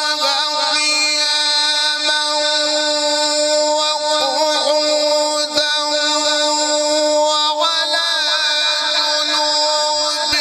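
Male Qur'an reciter holding a long drawn-out note in melodic tilawat, with wavering ornaments on it, stepping to a new pitch about three-quarters of the way through.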